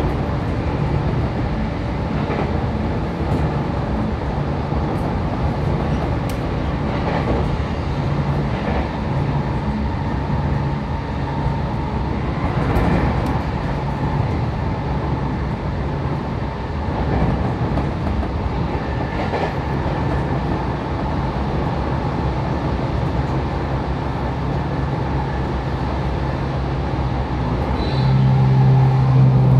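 Running sound inside a JR Kyushu 811 series electric train's motor car at speed: a steady rumble of wheels on rail and traction motors, with faint scattered clicks. Near the end a steady low hum comes in and the sound grows louder.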